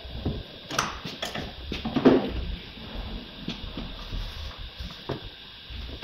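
Hands working inside the stripped rear door of a VW Polo 9N3: a series of separate clicks, knocks and rattles of parts in the door cavity, the loudest about two seconds in.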